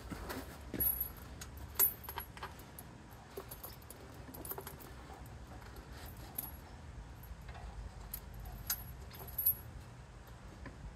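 Steel V-link ATV tire chain clinking and jingling in irregular bursts as its links are handled and hooked together on the inside of the tire, with a few sharper clinks about one and two seconds in and again near the end.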